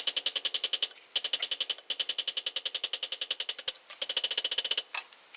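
Rapid metal-on-metal hammering on steel, about ten blows a second, in four runs with short breaks between them.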